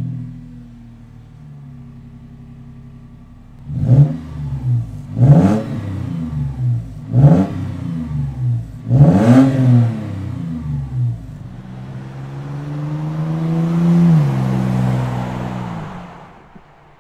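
Toyota 4Runner engine heard from outside through a MagnaFlow Overland Series cat-back exhaust with a single straight-through muffler. It settles into idle just after starting, gives four quick throttle blips from about four seconds in, then a longer, slower rev that climbs, drops off and fades to idle near the end.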